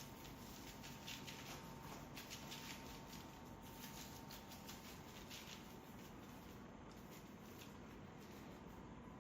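Faint soft rustling and pattering as grated Pecorino Romano cheese is sprinkled onto a baking sheet, mostly in the first half, over a faint steady hum.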